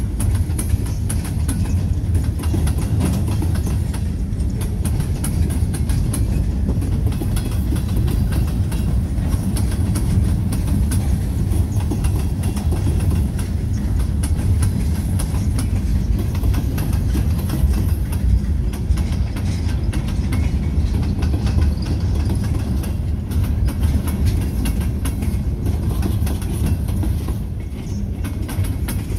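Freight train gondola cars rolling past: a steady rumble of steel wheels on rail with a dense run of clicks, easing a little near the end.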